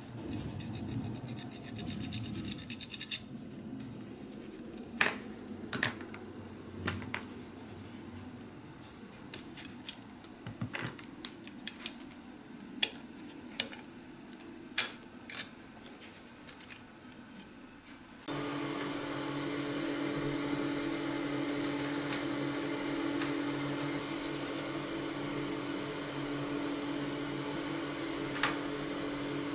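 Scratching and rubbing of a small die-cast metal toy truck being handled and worked with a thin pin, with scattered sharp metal clicks. A bit over halfway through, it cuts to a steady mechanical hum.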